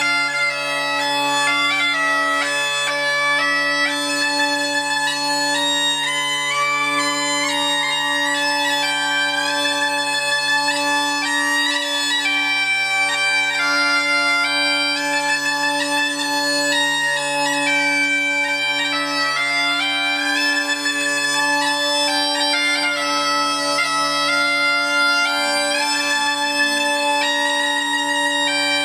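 Bagpipes playing a tune: a chanter melody moving over steady drones sounding an octave apart, held without a break.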